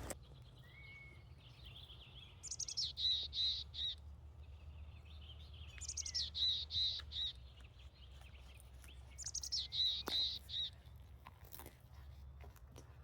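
A songbird singing the same short, high song three times, about every three and a half seconds, each phrase a quick run of notes falling and then ringing on a steady pitch.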